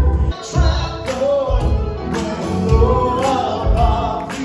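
Live band performing a Christmas carol: a lead singer's voice over guitar, keyboard, bass and drums keeping a steady beat.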